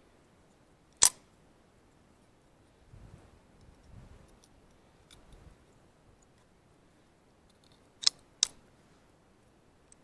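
Clicks of a .22 rifle's box magazine and a cartridge being handled while the magazine is loaded with one round. There is one loud sharp click about a second in, faint handling rustle, then two sharp clicks close together near the end.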